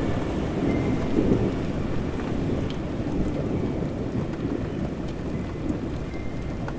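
Steady rain with a low rumble of distant thunder, swelling about a second in and slowly fading.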